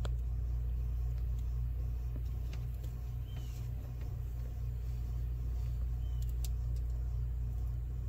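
A steady low hum, with a few faint, crisp clicks scattered through it from baby sulcata tortoises biting into leafy greens.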